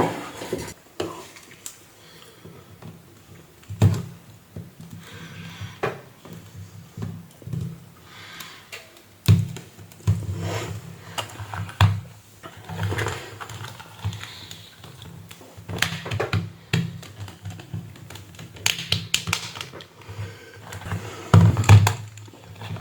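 Irregular clicks, taps and knocks of hands and tools working on a plastic tablet on a workbench, with a few louder knocks, over a low steady hum.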